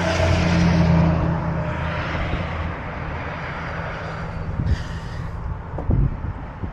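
Steady low engine hum, with a louder rushing noise that swells over the first two seconds and fades away, like a passing vehicle or aircraft. A few faint knocks come near the end.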